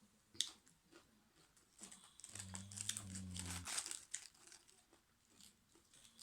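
Close-up crinkling, crackling and crunching as prawns are handled and eaten, with a sharp click about half a second in. A low two-note hum sounds through the middle.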